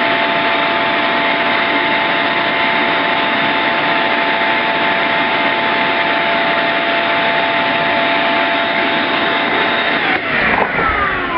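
Shop vac running steadily with a whining motor as it sucks mouse-nest debris from under the mower's blower shroud. It is switched off about ten seconds in, and the whine falls in pitch as the motor spins down.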